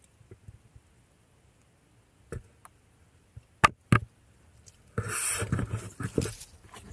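Footsteps on loose rock and gravel: a few sharp stone clicks, then a louder stretch of crunching and scraping about five seconds in, as the walker comes right up to the microphone.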